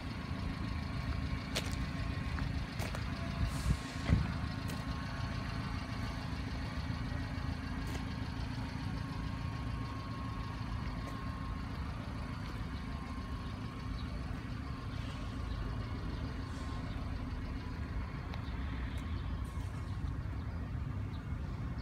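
Subaru Sambar kei truck engine idling steadily, with a few faint clicks in the first few seconds.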